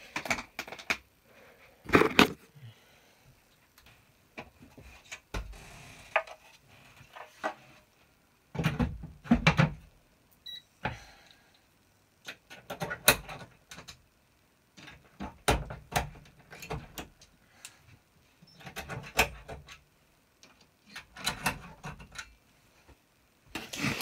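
Irregular clicks, knocks and rattles of a fire alarm control panel's cover being handled and fitted back on, with a few sharper knocks spread through.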